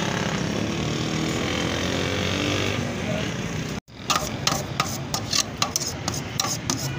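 Steady background din of a busy street stall, then after a sudden cut about four seconds in, a knife scraping in quick, irregular strokes against shawarma chicken and a steel tray.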